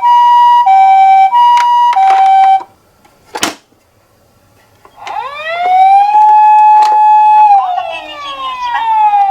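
Toy ambulance's electronic siren sounding the two-tone hi-lo pattern, high and low tones switching about every two-thirds of a second, then stopping about two and a half seconds in. A single sharp click follows, and near the middle a siren wail starts, rising, holding steady and then falling away.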